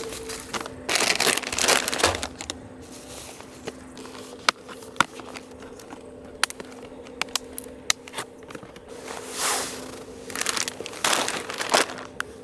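Crinkling and rustling in several bursts, with a few sharp clicks in between.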